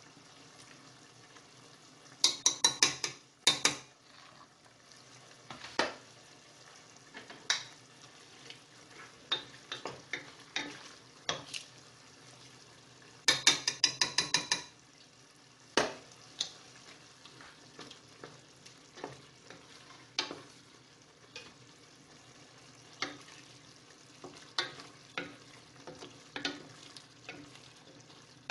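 Spoons stirring and scraping in a stainless steel saucepan of chicken filling, with scattered knocks against the pan. Twice, about two seconds in and again around the middle, comes a quick run of sharp metallic taps on the pan.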